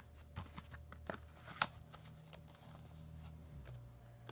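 Faint scattered clicks and rustling of plastic Blu-ray and DVD cases being handled, with one sharper click about one and a half seconds in, over a faint low hum.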